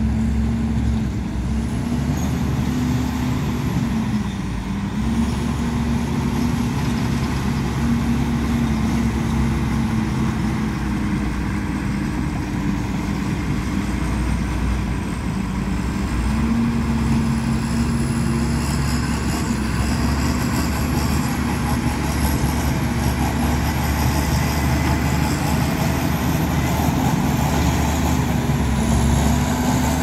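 Heavy diesel engine of earthmoving machinery running steadily under load, its pitch dipping briefly about four seconds in and picking up again.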